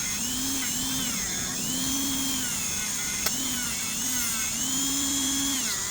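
Small high-speed rotary tool spinning a buffing wheel loaded with red rouge compound against copper-plated metal. Its whine dips and recovers in pitch every second or so as the wheel is pressed on and eased off. There is a single sharp tick about three seconds in.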